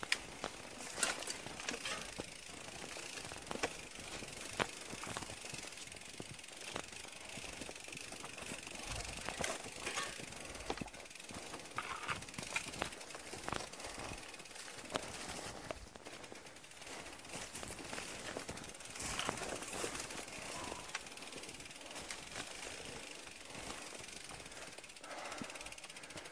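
A bicycle being pushed along by hand, its rear-hub freewheel ticking, with scattered clicks and knocks throughout.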